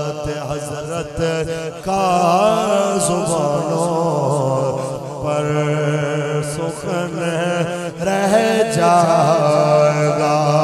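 A man's voice chanting a line of Urdu devotional verse in a slow, drawn-out melodic style, with long held notes that bend in pitch.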